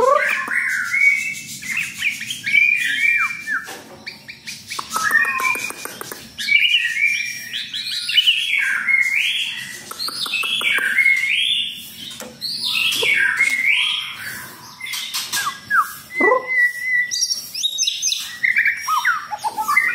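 White-rumped shama singing: a long run of varied whistled phrases that rise and fall, mixed with fast clicking notes, with short pauses between bursts.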